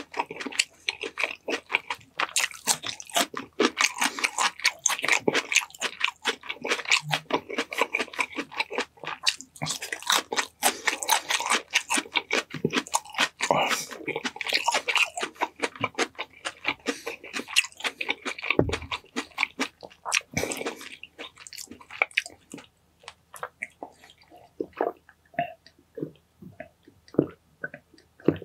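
Close-miked mukbang eating sounds: a person chewing and biting food in dense, rapid mouth noises. There is a single low thump about nineteen seconds in, and the chewing thins out to a few sparse sounds near the end.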